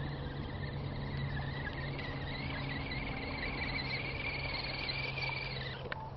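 Electric motor and gear whine of a 1/10-scale RC crawler truck driving through muddy water: a steady high whine that wavers and edges up in pitch, then cuts off shortly before the end.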